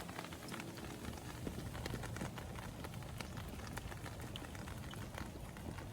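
Steady rain falling, with many separate drops ticking irregularly.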